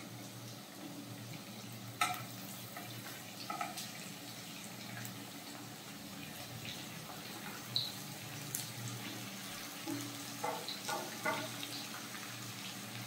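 Sliced onions scraped off a steel plate with a wooden spatula into a pan of hot oil: a faint steady frying sizzle under soft scrapes and light knocks of the spatula on the plate and pan, with one sharper knock about two seconds in and a run of small taps near the end.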